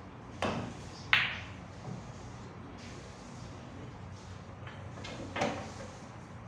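Sinuca balls clacking during a shot: a knock about half a second in, then the loudest, sharp ball-on-ball clack about a second in, a faint knock after it, and another knock near the end.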